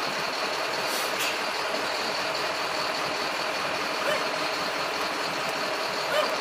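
Traffic in a jam: vehicle engines idling and creeping forward, a steady mix of motor and street noise, with a couple of short clicks about a second in.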